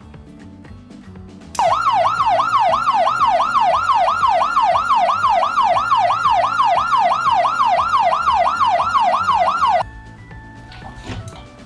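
Toy police car's electronic siren switched on: a loud, fast up-and-down wail, about three sweeps a second, starting about a second and a half in and cutting off suddenly after about eight seconds. Background music plays underneath.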